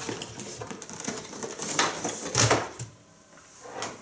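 Packaging of a computer mouse being opened and handled: a run of irregular rustles, scrapes and knocks, loudest a little after halfway, then quieter near the end.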